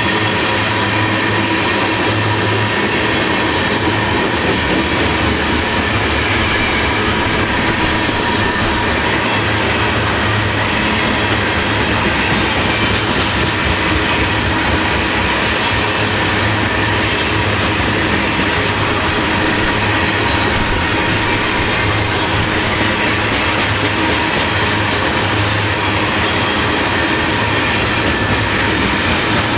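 Canadian National freight train's cars rolling past, a steady loud rumble of steel wheels on the rails with scattered clicks and a faint steady whine.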